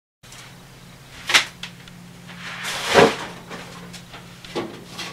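Kitchen cupboard doors and dishes being handled at the counter: three sharp knocks and clacks, about a second in, about three seconds in (the loudest) and near the end, over a steady low hum.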